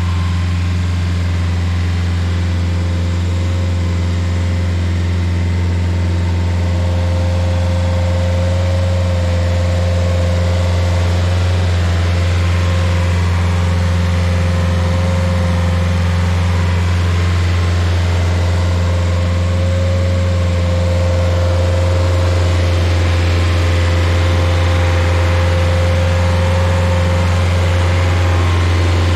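Rayco Super RG50 stump grinder's engine running steadily, a strong low hum with a thin steady whine above it, as the machine drives across the ground.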